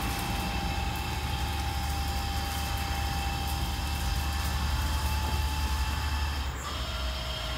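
Steady low mechanical hum in a car wash bay, with a thin steady whine that stops about six and a half seconds in.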